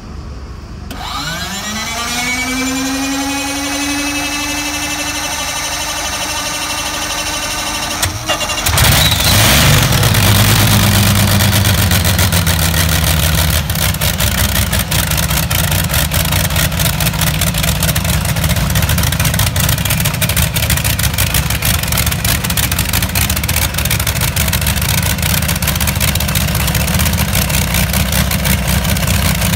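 A modified competition pulling tractor's engine being started for a warm-up: a starter whine rises in pitch and levels off, then about eight and a half seconds in the engine fires and runs loud and steady for the rest of the time.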